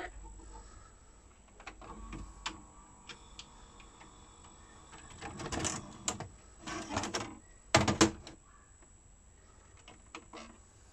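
Panasonic NV-HD600MK2 VHS video cassette recorder stopping and ejecting a tape: scattered mechanism clicks, then the cassette sliding out of the slot, with two sharp knocks about eight seconds in as the cassette is handled and set down on the machine.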